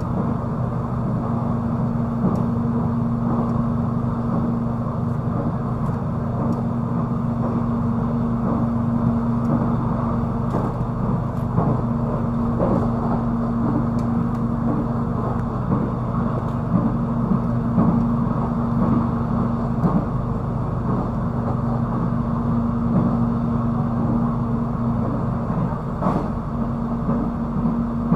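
Cabin noise of the moving Soekarno-Hatta airport electric train: a steady rumble of wheels on rails with a constant low hum and scattered light clicks and knocks.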